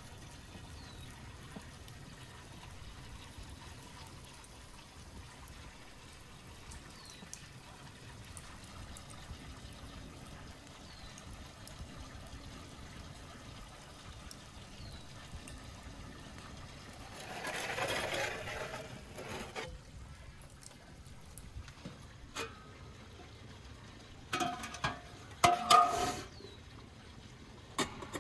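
Steady trickling water with a bird's short, falling chirps every few seconds. A louder rustling stretch comes about two thirds of the way through, and a few sharp metallic clanks near the end.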